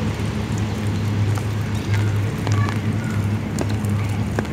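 Cessna 208 Caravan amphibian's turboprop running far off on the water, heard as a steady, slightly pulsing low drone. Light rain patters and ticks over it.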